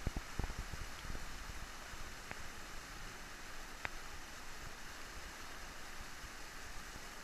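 Steady rushing of a whitewater river rapid and its standing wave, with a few faint sharp ticks.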